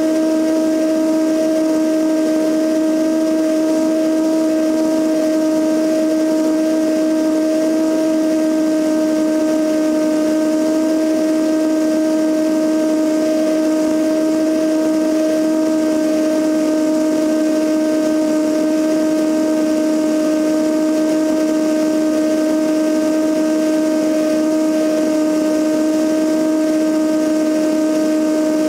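Cessna 172N's four-cylinder Lycoming engine and propeller droning steadily in cruise flight, with wind rushing past the camera under the wing. The drone carries a steady, even hum that holds one pitch throughout.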